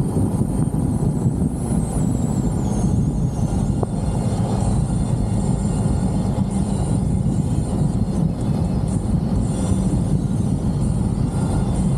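Steady wind rush, tyre noise and engine drone of a Jeep driving with its top off, heard from inside the open cab.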